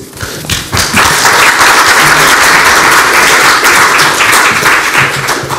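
Audience applauding, a dense patter of many hands clapping that swells within the first second and dies away near the end.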